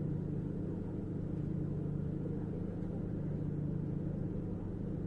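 Running sound of a 455-series AC/DC express-type electric multiple unit on the move: a steady low hum and rumble of the motors and wheels on the rails, even in level throughout.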